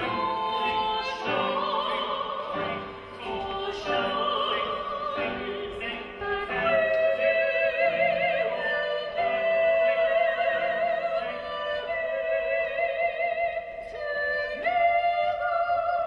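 Operatic singing with strong vibrato over classical music. For about the first six seconds the sung notes change often, and after that they turn into long held notes.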